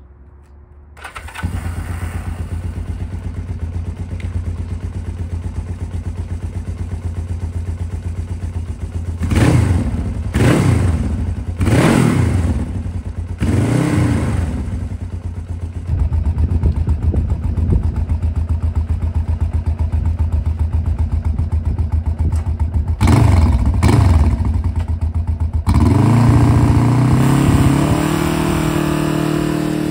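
1976 Honda CB500T's parallel-twin engine starts about a second in and runs at idle with a rapid, even beat. It is blipped with the throttle several times, short rises and falls in revs, and near the end holds at a higher, louder steady speed.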